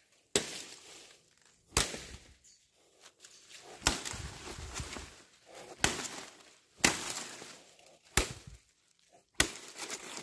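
Chopping into a palm tree to get at its heart: about seven sharp blows, one every second or two, each followed by a brief rustle of the fibrous wood.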